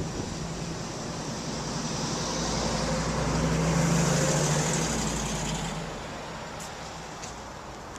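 A motor vehicle passing by: engine hum and tyre noise build up, are loudest about four seconds in, then fade away.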